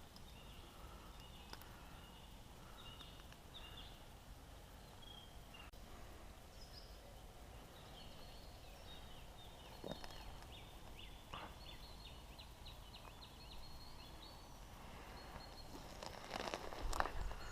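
Small birds singing with many short, high chirps over a low, steady outdoor background. Near the end comes a brief, louder clatter.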